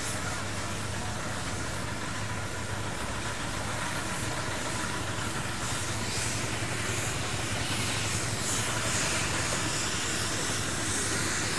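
Steam engine running with a steady hiss of steam over a low rumble, the hiss growing a little stronger in the second half.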